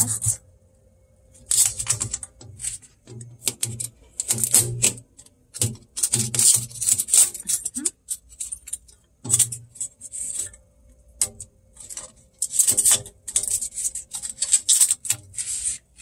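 Blue adhesive shipping tape being peeled off the plastic shelves and drawers of a new refrigerator: a run of short, irregular crackling rips, with clicks and knocks of the plastic parts being handled.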